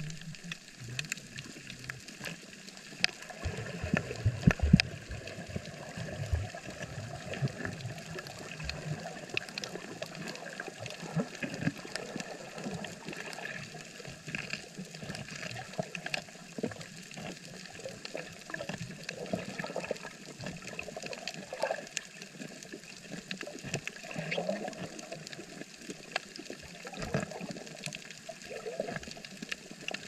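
Underwater coral-reef ambience recorded by a submerged camera: a steady wash of water noise with many irregular sharp clicks and crackles, and a few low thumps about four seconds in.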